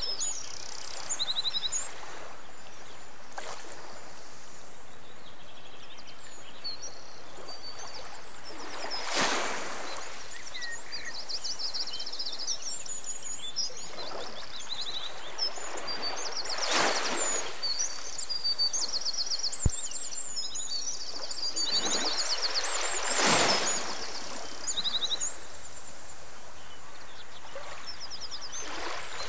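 Outdoor ambience of small birds chirping in quick, high trills over a steady hiss. Three louder rushing swells rise and fade along the way.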